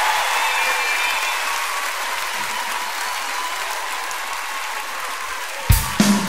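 Audience applauding at the end of a song, slowly dying away. About six seconds in, the next song starts suddenly with loud music.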